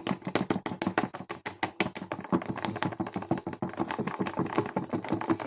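A whisk beating thick whipped topping in a jug, its wires clicking and tapping against the jug in a rapid, even rhythm of several strokes a second. The topping is stiffening and nearly ready, almost thick enough to lift the jug on the whisk.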